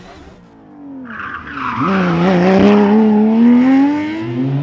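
Porsche 997 GT3 rally car's flat-six engine pulling hard, its note climbing steadily in pitch, with a rush of tyre noise from the loose, dusty road surface.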